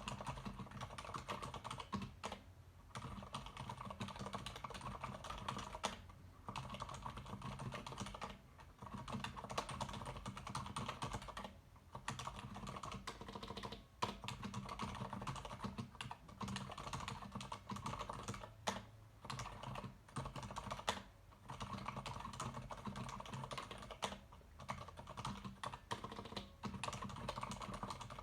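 Continuous typing on a Leopold FC900R PD mechanical keyboard with Cherry MX Silent Red switches: dense, muted key clacks in runs of a few seconds, with brief pauses between bursts.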